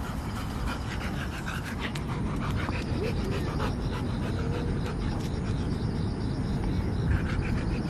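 A Labrador–Staffordshire bull terrier mix dog panting after running with a tennis ball, over a steady low rumble.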